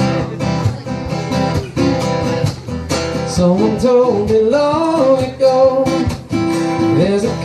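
Music: an acoustic guitar strummed in chords, with a voice starting to sing about halfway in.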